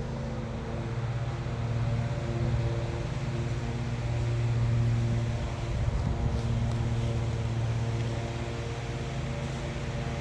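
Steady low mechanical hum with a droning pitch, swelling slightly in loudness now and then.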